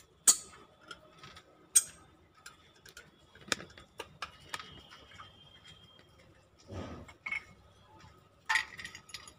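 Scattered sharp metallic clicks and taps, a second or more apart, as a small tin of paint is handled and opened.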